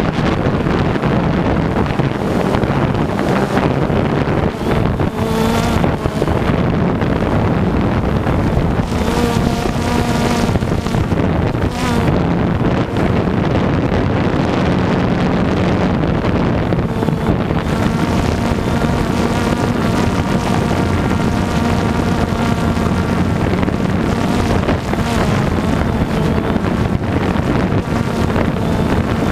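DJI Phantom 2 quadcopter's electric motors and propellers whirring, picked up by the GoPro mounted on it: a steady multi-tone hum whose pitch shifts now and then as the drone manoeuvres, mixed with wind rushing over the microphone.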